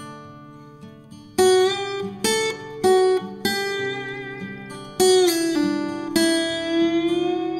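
Background music of plucked acoustic guitar: loud ringing notes enter about a second and a half in, several more follow, and the last one is left to ring out, over a quieter repeating low line.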